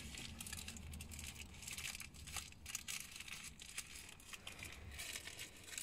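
Faint crinkling of plastic packaging being handled in the hands, a run of irregular small crackles.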